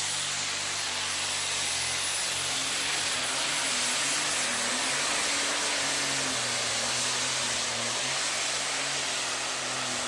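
Super stock pulling tractor's turbocharged diesel engine running flat out under heavy load as it drags a weight-transfer sled down the track, with a high steady whine over the engine noise.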